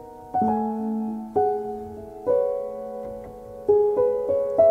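Background piano music: slow, soft chords, a new one struck about once a second and each left to fade.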